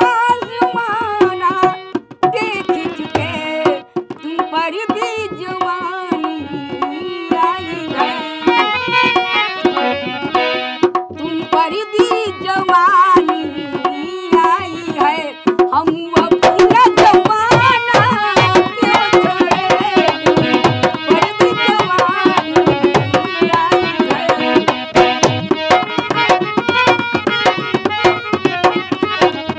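An elderly woman singing a folk song to a dholak, the two-headed barrel drum, struck with the hands in a steady rhythm. From about halfway through, the drumming gets denser and louder.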